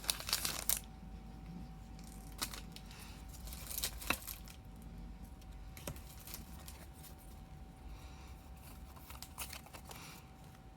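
Foil Pokémon booster pack crinkling briefly at the start, then scattered light clicks and rustles of trading cards being handled.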